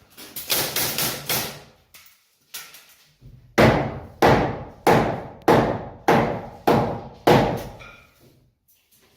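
Hammer blows on wood framing: seven even strikes about half a second apart, each ringing briefly, after a shorter, busier stretch of knocking at the start.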